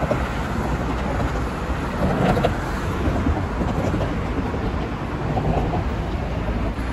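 Street traffic: cars driving past on a city street, a steady mix of engine and tyre noise with a low hum underneath.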